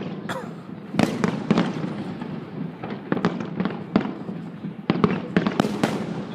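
Aerial fireworks going off in quick volleys of sharp bangs and crackles, with several clusters of bursts about a second apart and a steady rumble between.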